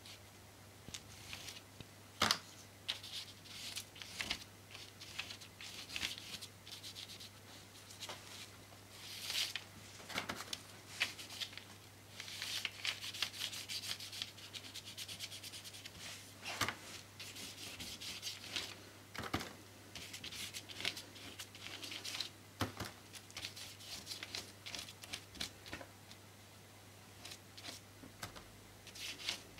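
A paintbrush scrubbing black paint onto paper, a scratchy rubbing in uneven strokes, with a few sharp taps in between.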